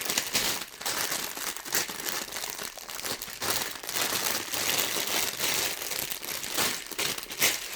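Sealed plastic bags of Lego pieces being handled, crinkling and rustling irregularly, with the loose bricks inside shifting.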